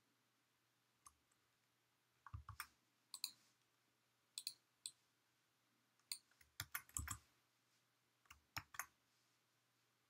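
Scattered clicks of a computer mouse and keyboard, coming singly and in quick clusters of two to four, over near-silent room tone.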